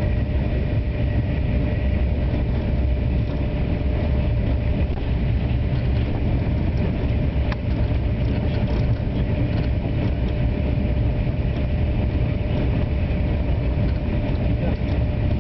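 Thalys high-speed train running at speed: a steady deep rumble and rush with a faint steady hum over it, holding even without rising or falling.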